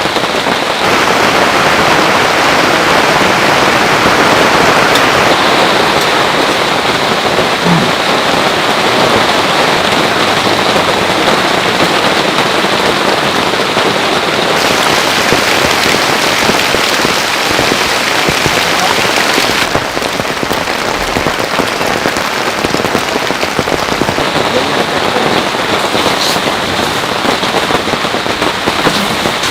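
Heavy rain falling steadily, a dense hiss of drops that eases slightly about two-thirds of the way through.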